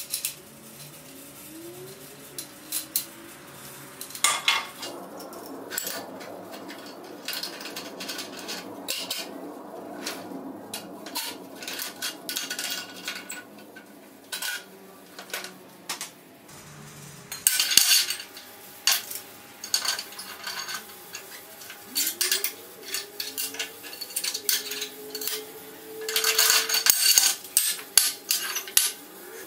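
Metallic clinks and knocks of a homemade steel T-handle screw clamp being handled and clamped onto a steel welding table and square steel tube. The knocks come in irregular clusters, busiest near the end.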